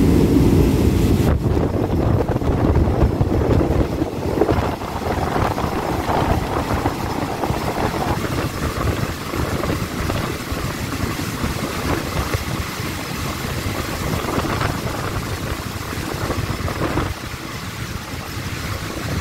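Passenger train running on the rails, heard from the side of the carriage with wind buffeting the microphone; the rumble eases as the train slows into the station, dropping further near the end.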